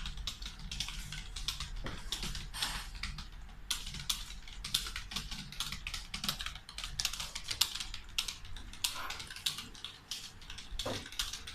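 Very fast touch-typing on a computer keyboard: a rapid, uneven stream of keystroke clicks, at a typing speed of about 120 words per minute.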